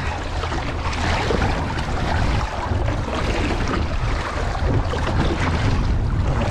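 Water rushing and splashing along the hull of a boat underway, with wind buffeting the microphone and a steady low rumble.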